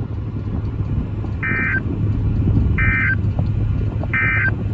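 Emergency Alert System end-of-message data bursts: three short, identical warbling digital chirps about a second and a half apart, closing out a tornado warning broadcast, over a steady low hum.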